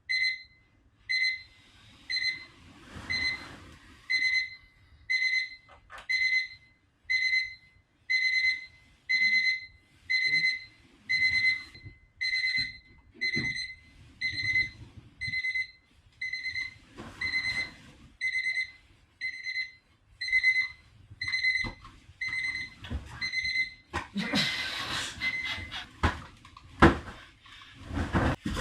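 Electronic alarm beeping, a high beep about once a second, with occasional rustling. About 24 seconds in the beeping stops and louder rustling and knocking take over.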